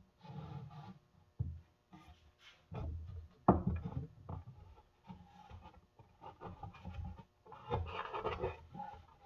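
Wooden boards being handled and fitted into a frame: irregular scraping and rubbing of wood on wood, with a sharp knock about three and a half seconds in.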